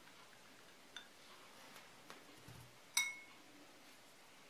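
Quiet handling of glass dishes: a light tick about a second in, a soft low bump, then one sharp clink of a knife against a glass bowl about three seconds in that rings briefly.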